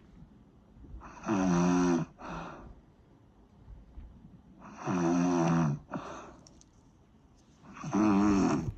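Snoring: three loud snores about three and a half seconds apart, each followed by a short, fainter breath.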